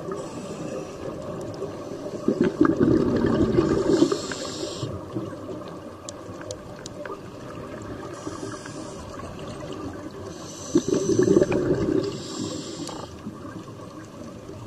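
Scuba diver breathing through a regulator underwater: two loud rushes of exhaled bubbles, about 2 s and 11 s in, with shorter high hisses of inhaled air in between.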